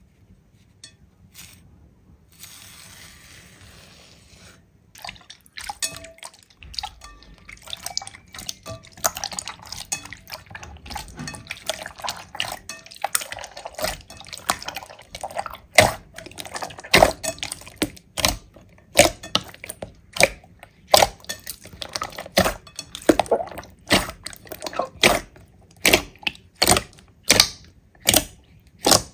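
Slime being squished and pressed, making wet clicking and popping sounds that build up after a quiet, hissy start. From about halfway, sharp wet pops come roughly once a second.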